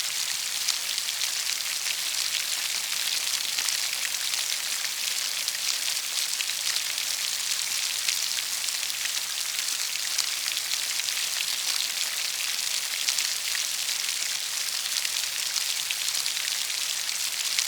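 Steady rain falling, a dense even hiss of many drops with fine crackling drop impacts, unchanging throughout.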